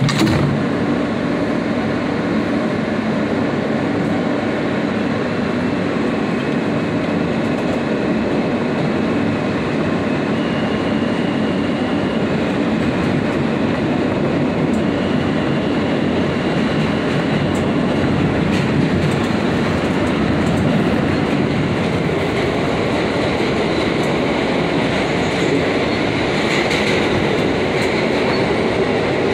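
New York City subway train running, pulling along the platform and on into the tunnel: a steady rumble and clatter of steel wheels on the rails, with a faint high whine partway through.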